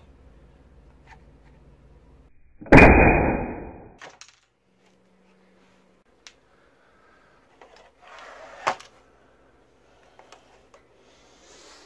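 Daisy Powerline 880S multi-pump pneumatic air rifle, pumped 12 times, firing a 16-grain .177 pellet: one sharp report about three seconds in that dies away over about a second. A few faint knocks follow later.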